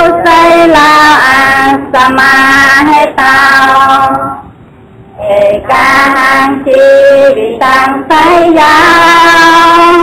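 A high-pitched voice singing long, drawn-out phrases, with a break of about a second around the middle.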